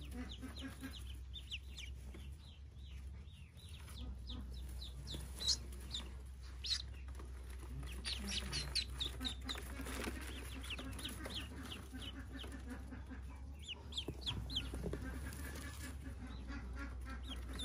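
Newly hatched Pekin ducklings peeping: many short, high chirps in quick runs, coming and going.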